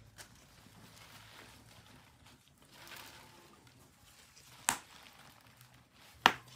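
Kitchen handling sounds as a pot of salted water with quelites is set to boil: two sharp knocks about a second and a half apart in the second half, over a faint low hum.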